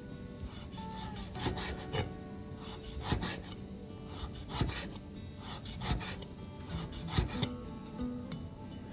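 Kitchen knife slicing on a wooden cutting board in irregular rasping strokes, about one a second, over soft background music.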